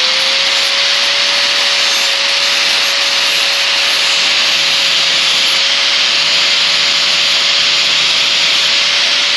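Angle grinder with a 40-grit sanding pad running at full speed: a steady whine over the hiss of the pad lightly sanding the bevel of a mulching lawn mower blade, taking off marker paint.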